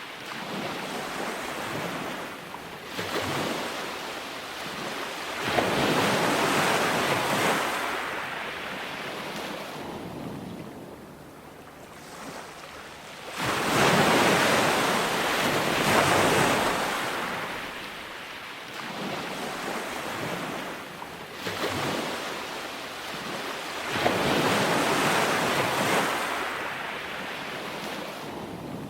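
Ocean surf: waves breaking and washing up a beach, swelling and ebbing, with a big wave crashing every several seconds and gentler wash in between.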